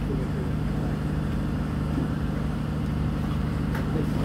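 Boat engine running steadily, a low, even hum with no change in pitch.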